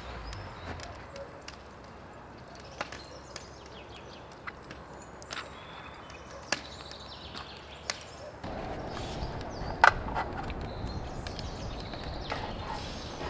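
Scattered light clicks and knocks, as of utensils and food being handled while cooking, with a sharper knock near ten seconds in. A louder steady low rumble begins about two-thirds of the way through.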